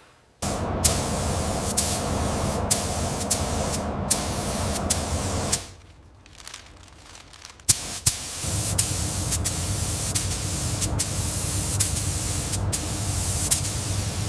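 Steady spraying hiss from a nozzle with a low hum underneath, starting suddenly, cutting out for about three seconds around the middle, then starting again. Short sharp clicks come roughly once a second.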